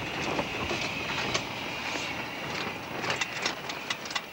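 Camping stove burning with a steady hiss, melting snow. From about three seconds in, a run of sharp clicks and knocks from gear being handled beside it.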